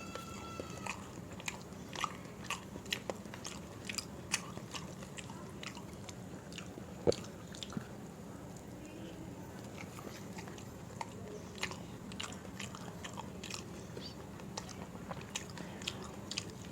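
Close-miked eating sounds of someone chewing rice, dal and vegetable curries: many short wet mouth clicks and smacks at an irregular pace, one sharper click about seven seconds in, over a faint steady low hum.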